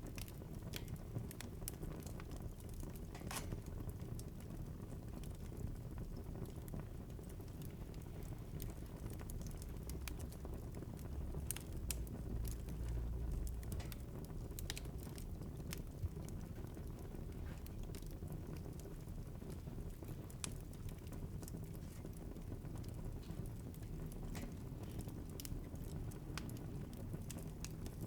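Wood fire crackling in a fireplace: irregular sharp pops and snaps over a steady low rumble of the flames, which swells a little about twelve seconds in.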